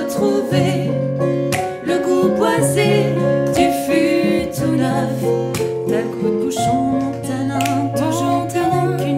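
Acoustic guitar strummed with piano accompaniment under a woman's singing voice, in a steady song arrangement.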